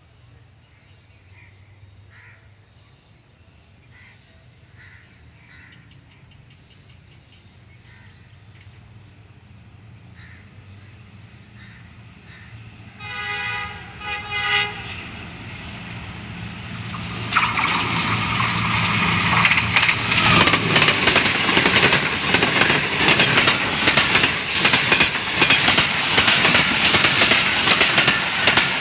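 A ZCU-20 diesel-electric locomotive hauling an express passenger train at speed. Its low engine drone grows steadily louder as it approaches, its horn sounds twice about halfway through, and from a little past the middle the train is rushing past close by with its wheels clattering rapidly over the rails.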